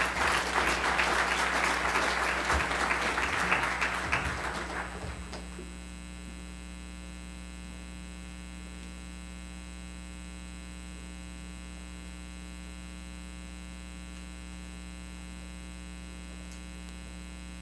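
Audience applauding at the end of a speech, dying away about five seconds in. After that only a steady electrical mains hum remains.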